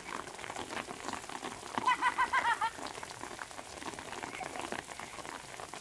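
Light rain pattering steadily, with many small drops ticking. About two seconds in comes a brief run of quick high-pitched calls.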